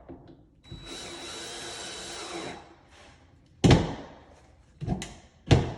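Power drill with a star bit running for about two seconds, driving a 1 1/4 inch finish screw through a wooden stile into a cabinet door. A few seconds later come three sharp wooden knocks.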